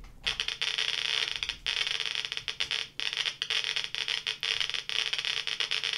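A homemade Geiger counter's small loudspeaker, driven by an NE555, clicking very rapidly. It starts a moment in, as its SI-8B pancake tube counts about 38 pulses a second from thoriated welding electrodes. The clicks come so fast that they merge into a dense crackle.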